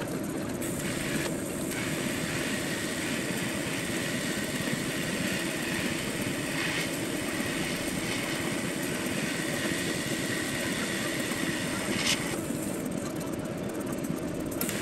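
TIG welding arc hissing steadily during a fusion pass over a weld on a steering column tube, over a steady low hum. The arc cuts out about twelve seconds in and strikes again near the end.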